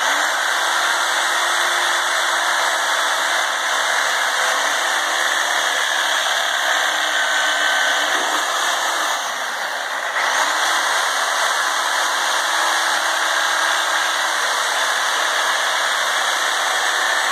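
Corded reciprocating saw (Sawzall) running steadily with its blade cutting through a whole raw turkey. It starts abruptly and eases off slightly for about a second around the middle.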